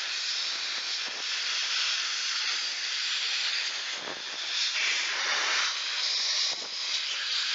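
Compressed air hissing steadily from a blow-gun nozzle, blown into the debris-packed air-filter housing of a chainsaw, with two brief dips as the nozzle is moved.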